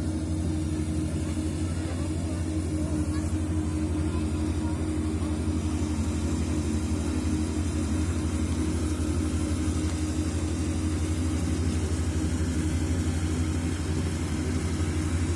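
Steady low drone of a Kubota rice combine harvester's diesel engine running under load while harvesting.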